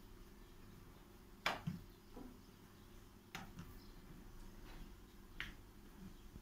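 Thin rolled-out sheet of börek dough being folded and lifted by hand on a table, with a few short, sharp snaps or slaps: the loudest about a second and a half in, then two more roughly two seconds apart.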